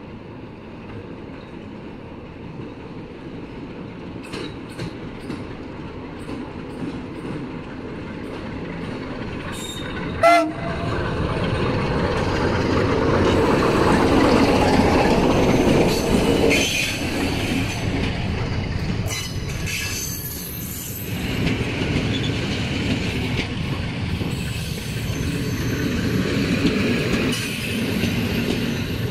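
Class 060-DA diesel-electric locomotive hauling a passenger train into the station. Its engine and wheels grow louder as it draws near, with one short horn blast about ten seconds in, then clicking over the rail joints and high wheel squeals as it passes.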